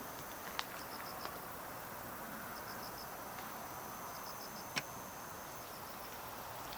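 Insect chirping in short bursts of about four quick pulses, repeated several times over a steady high-pitched whine. Two sharp clicks cut through it, a small one about half a second in and a louder one near five seconds.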